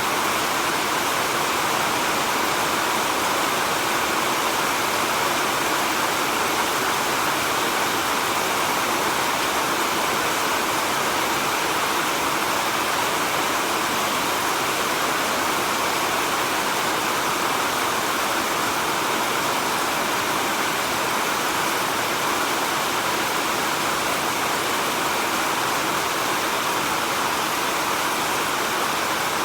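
Steady heavy rain falling in a rainforest: a dense, even hiss of rain with no let-up.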